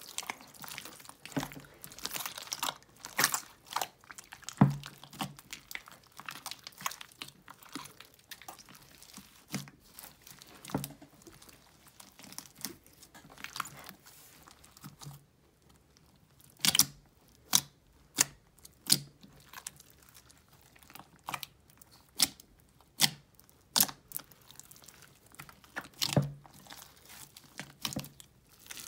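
A large mass of thick mixed slime being kneaded, squeezed and stretched by hand in a glass bowl: irregular sticky pops and crackles, some close together, with soft squishing between.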